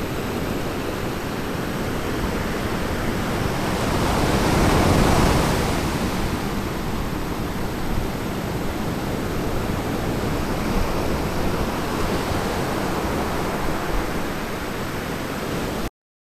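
Ocean surf washing against the shore in a steady hiss and rumble, one wave building and breaking about five seconds in; the sound cuts off suddenly near the end.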